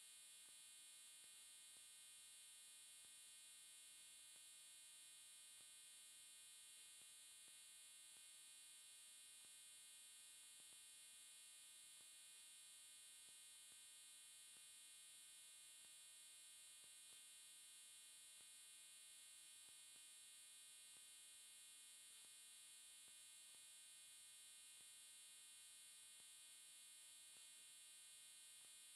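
Near silence: only a faint, steady electronic hum and hiss, with no sound from the mixing of the sand and water.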